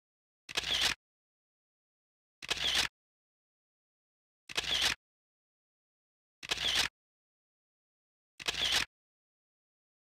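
Camera shutter sound effect, the same short click-and-whir sounded five times, evenly about every two seconds, with silence between.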